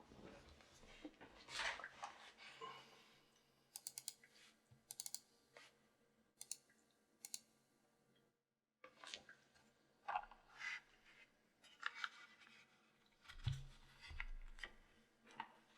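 Scattered, irregular keystrokes on a custom mechanical keyboard with lubed vintage Cherry MX Black linear switches in a forged carbon fiber plate, under GMK keycaps: single key presses and short runs of quick clicks, quiet overall, with a brief silent gap a little past the middle.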